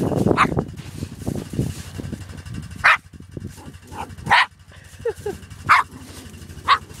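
A small rat terrier barking: about five short, sharp barks spaced a second or so apart, with a couple of fainter short calls between them.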